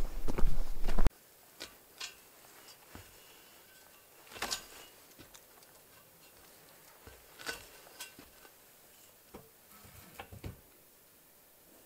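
Footsteps walking through dry brush for about the first second, then an abrupt cut to quiet with a few scattered faint clicks and taps.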